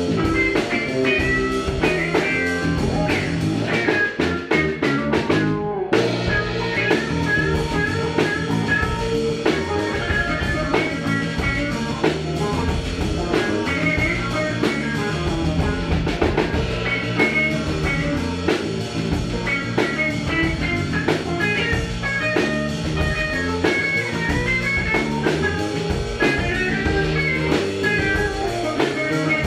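Electric guitar, electric bass and drum kit playing a funk groove together live, with a brief break about six seconds in.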